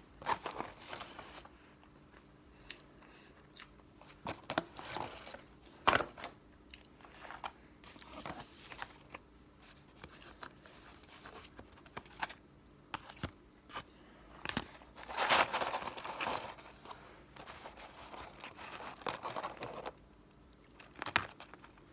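Eating and food-packaging handling: chewing on fries, with irregular crinkling, rustling and knocks of McDonald's cardboard fry cartons and a sandwich box being moved about.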